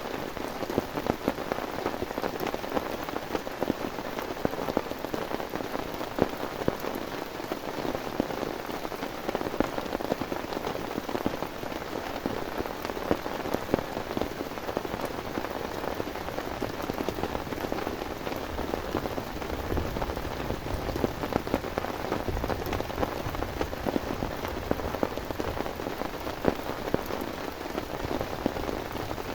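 Heavy rain falling steadily, a dense patter thick with sharp individual drop hits.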